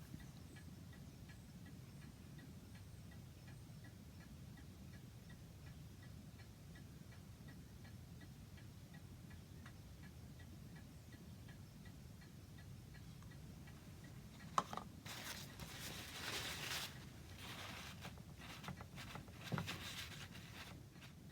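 A clock ticking faintly and evenly over a low steady hum. About fourteen seconds in, rubbing and rustling handling noises begin, with a couple of sharp knocks.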